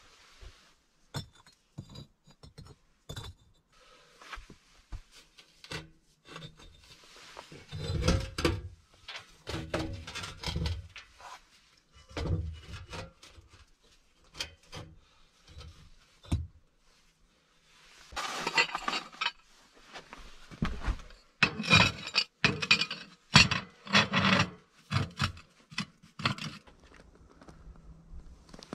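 Bricks being handled and laid on a small brick stove: repeated knocks and clinks of brick against brick, with scraping as bricks and a flat stove-top plate are slid into place. The scraping and knocking are loudest in a busy stretch about two-thirds of the way through.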